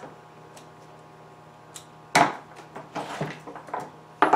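Clicks and clunks of a Holzfforma G255 chainsaw being handled on a plywood board, its caps and plastic housing knocked about as it is checked over: a few light clicks, then two sharp clunks about two seconds in and near the end, over a steady low hum.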